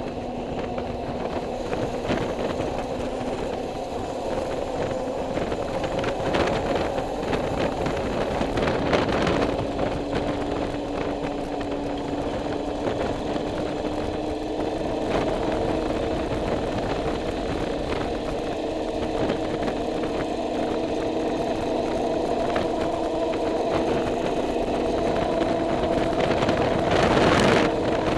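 A motorcycle engine running at a steady cruise over road and wind noise. Its note steps up slightly about a third of the way in. A brief louder rush comes near the end.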